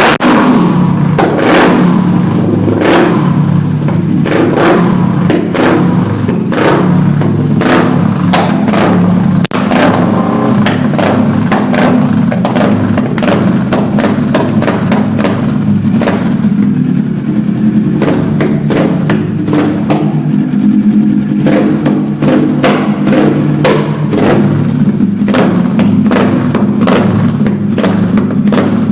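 Kawasaki ER-6f's parallel-twin engine running loudly at a steady speed, with many short sharp knocks over the engine note.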